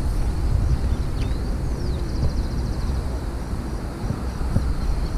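Outdoor field ambience: a steady low rumble with a few faint high bird chirps, including a short rapid trill about two seconds in.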